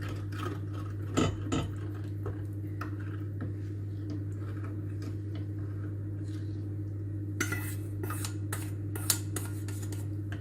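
Utensil clinking and scraping against a bowl as beaten egg and hot milk are stirred together, with a few louder clinks about a second in and again around seven to nine seconds, over a steady low hum.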